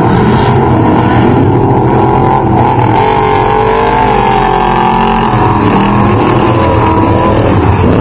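Off-road desert race vehicles (Trophy Trucks and Class 1 cars) with loud engines running, their pitch rising and falling as they rev.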